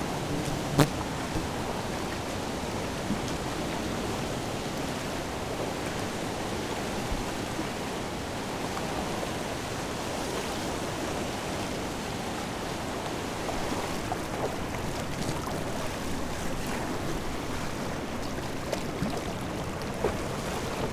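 River rapids rushing steadily over a rocky drop. A single sharp click comes about a second in.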